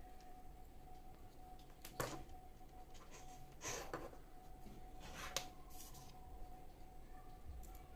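Quiet handling noises from working on a small plastic gadget and its wires: a few light clicks and rustles, about two seconds in, near the middle and twice more a little later, over a faint steady tone.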